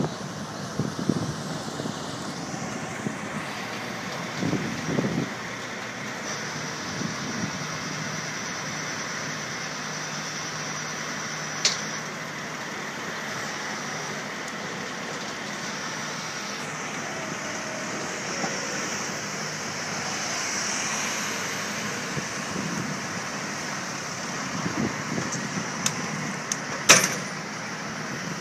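Heavy wrecker running steadily under load as its boom and winch drag a jackknifed semi-trailer back onto the road, with a high steady whine through the middle. Two sharp knocks, the louder one near the end.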